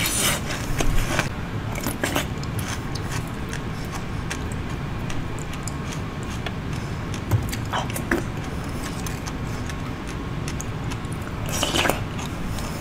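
Close-up eating sounds: crisp bites and crunches into a purple crystal-crusted treat, then a wooden spoon scraping and scooping its soft, sticky inside. Scattered sharp crunches, with a louder burst of crunching near the end.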